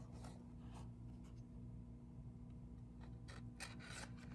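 Faint scattered rustles and light scrapes over a steady low hum: quiet room tone.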